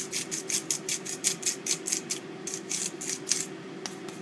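Hand-twisted salt grinder grinding salt into a pot of stew: rapid grating clicks, about five a second, with a short pause past the two-second mark, stopping about three and a half seconds in. A steady low hum runs underneath.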